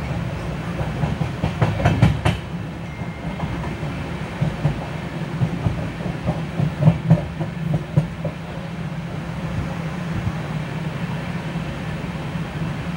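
LHB passenger coaches running at speed over the track: a steady low rumble from the wheels on the rails, with clusters of sharp clacks about two seconds in and again around seven seconds in as the wheels cross rail joints.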